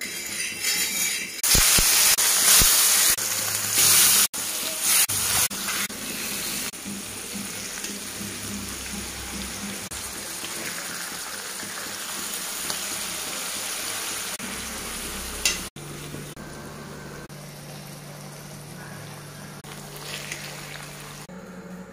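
Masala-coated trevally fish steaks sizzling as they shallow-fry in oil on a flat griddle. The hiss is loudest over the first few seconds, then settles into a steady, quieter sizzle.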